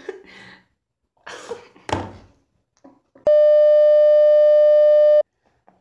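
A loud, steady electronic bleep, one unwavering tone held for about two seconds, that starts and cuts off abruptly a little past halfway through.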